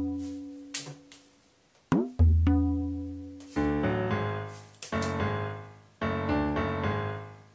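Background music: struck piano-like notes that fade out, a long low note twice in the first half, then a quicker run of notes from about halfway through.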